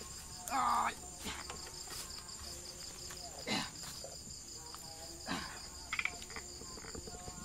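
Insects chirring steadily in a fast, high, pulsing trill, with a few brief louder sounds cutting in, the loudest about a second in.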